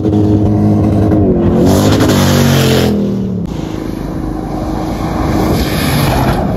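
Off-road rally 4x4s driven hard through sand: an engine runs at high revs and its note drops as the vehicle goes by, with a rush of noise as it passes. Another vehicle passes close near the end.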